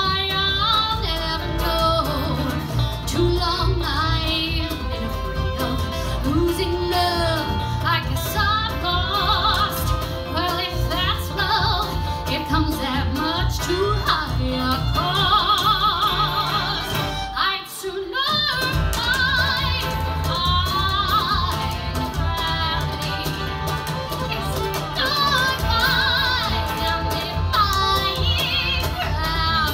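Live acoustic band music, with a woman singing over upright bass and cajon. The band stops together for a brief break a little over halfway through, then carries on.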